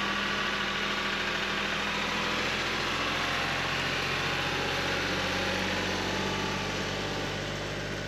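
Kioti CK3510SE compact tractor's three-cylinder diesel engine running steadily as the tractor drives past towing a loaded wheeled cart, getting a little quieter near the end as it moves away.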